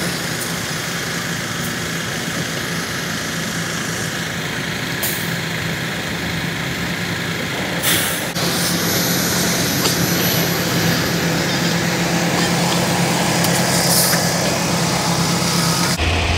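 Semi truck engine running steadily with a low hum. Two short hisses come about 5 and 8 seconds in, and the engine is a little louder after the second.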